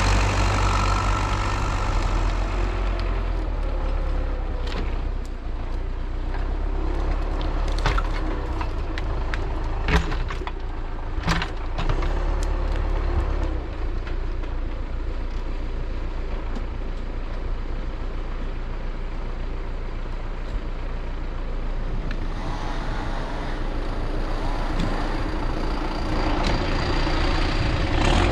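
MTZ-82 tractor's diesel engine running steadily, with a few sharp knocks about a third of the way through.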